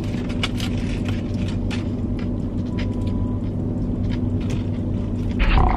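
Steady hum of a car idling with its air conditioning running, heard inside the cabin. Scattered small clicks of chewing and handling a foil-wrapped burger, with a louder rustle near the end.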